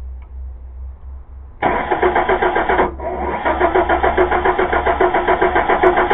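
A 2000 Chevy Blazer's 4.3-litre V6 is turned over by the starter with an even rhythmic chugging: a short crank, a brief stop, then a longer crank of about four seconds. The owner puts the no-start down to a bad distributor cap.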